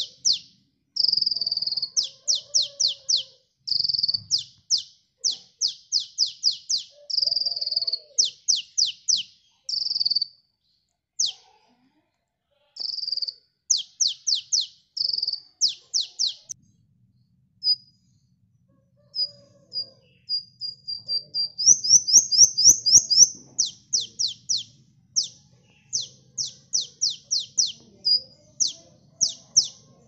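Sunbird (kolibri) singing: quick runs of high, sharply falling chirps in groups of three to six, mixed with short high trills.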